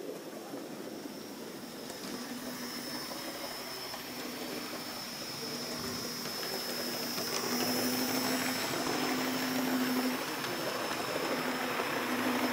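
Model train running on the layout track: a steady electric-motor hum with the running noise of wheels on rail. The hum comes in about two seconds in and grows louder through the middle.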